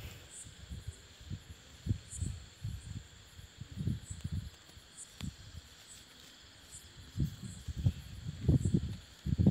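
Crickets chirping steadily in the background, under irregular low bumps and rumbles on the microphone that are loudest near the end.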